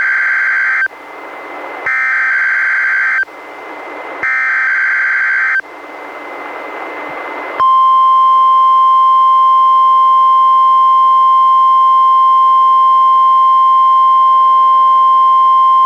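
Emergency Alert System SAME data bursts from a NOAA Weather Radio Required Weekly Test: three harsh, buzzing digital header bursts about a second apart, with radio hiss between them; the first is already under way and ends just under a second in. About seven and a half seconds in, the steady 1050 Hz NOAA Weather Radio warning alarm tone starts and holds at one pitch.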